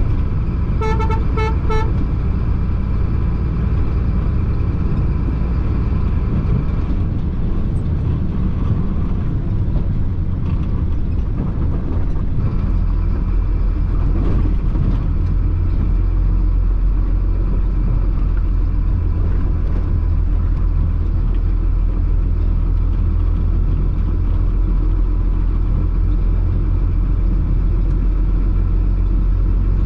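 Chenglong concrete mixer truck's diesel engine running steadily under way, heard from the cab. About a second in, a horn gives a rapid run of short toots. About twelve seconds in, the engine's low rumble deepens and stays heavier.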